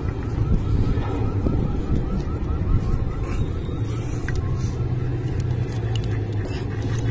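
Steady low background rumble, with a few light clicks as the disassembled fan motor's parts are handled and a faint, quick run of small repeated chirps in the first half.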